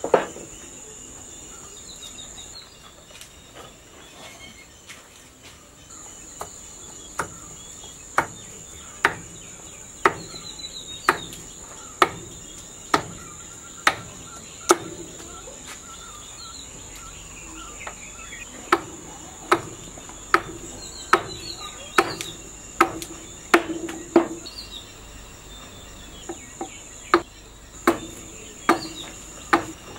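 Sharp wooden knocks, about one a second in runs with short pauses, as a piece of wood is struck down against a wooden workbench, with one louder knock at the very start. A constant high drone of insects runs underneath.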